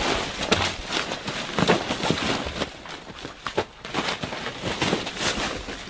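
Loose paper rustling and crumpling as a person thrashes and rolls through a heap of it, a run of quick, irregular crackles.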